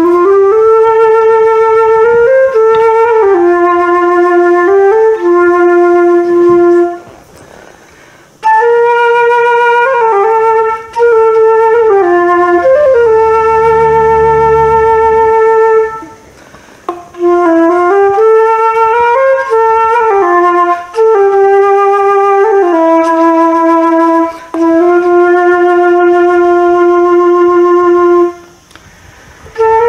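Solo flute playing a slow, ornamented melody in long phrases of stepped and held notes, with three brief pauses between phrases.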